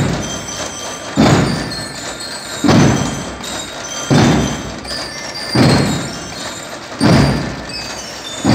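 Marching-band drums playing a slow, even beat: a heavy booming stroke about every one and a half seconds with lighter drum strokes between, and short high ringing notes over them.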